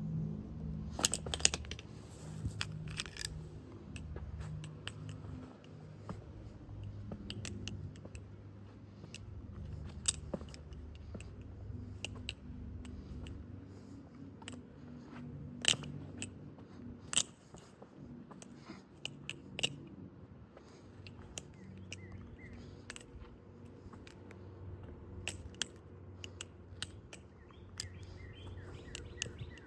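Aluminium-handled KEEDAS balisong (butterfly knife) being flipped: irregular, sharp metallic clicks and clacks as the handles and latch knock together. A cluster of clicks comes about a second in, and the loudest single clacks come a little past halfway.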